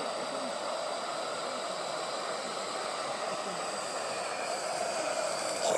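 A Gauge 1 live-steam model locomotive running, heard as a steady hiss with no distinct exhaust beats.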